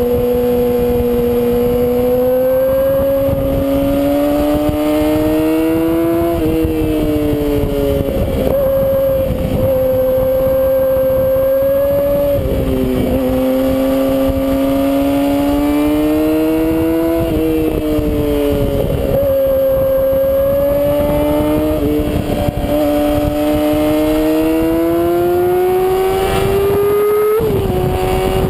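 Inline-four sport-bike engine pulling hard at high revs, heard from the bike itself. The engine note climbs slowly and drops back sharply about every five seconds, five times in all. Wind rushes over the microphone throughout.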